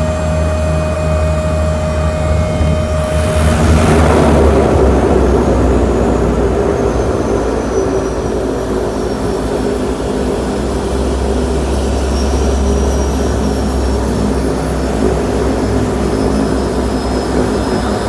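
Seaplane's propeller engines droning steadily as it lands, with a loud rush of water noise about four seconds in as the floats touch down. High engine whines slowly fall in pitch afterwards as power comes off.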